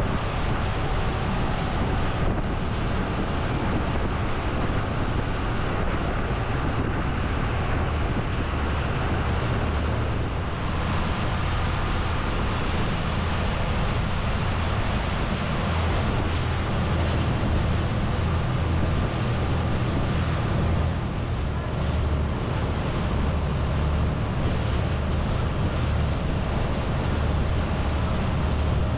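Tour boat's engine running steadily under way, with a low drone, while wind rushes across the microphone.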